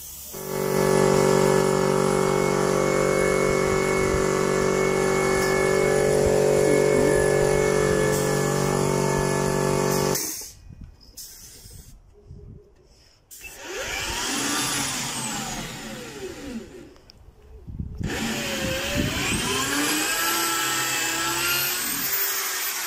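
A power tool's electric motor runs at one steady pitch for about ten seconds, then cuts off. After a pause, a drill whirs in two longer runs, its pitch rising and falling as the trigger is squeezed and eased.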